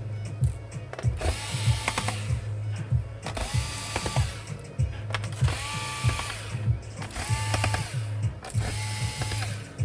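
Background electronic music with a repeating pattern of gliding synth tones, clicky percussion and a steady bass.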